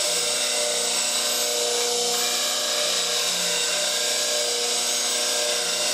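Slow-speed bench grinder with a CBN wheel running while a spindle gouge's marker-blackened tip is ground on it: a steady motor hum under an even grinding hiss.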